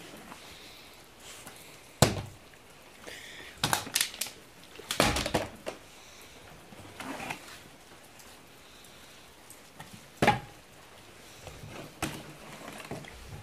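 Plastic water bottle being flipped and landing on wooden floorboards: a series of sharp thunks and clatters, several seconds apart, the bottle falling over rather than landing upright.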